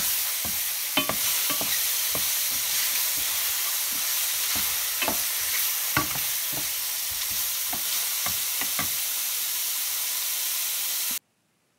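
Mushrooms sizzling steadily in oil and soy sauce in a stainless steel skillet, with a wooden spoon knocking and scraping against the pan as they are stirred. The knocks come irregularly and stop about nine seconds in, and all sound cuts off abruptly near the end.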